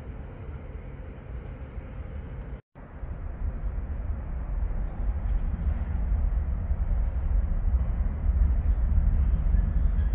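Steady low outdoor rumble beside a tram line, dropping out for an instant about two and a half seconds in where the recording cuts, then running louder and more uneven after it.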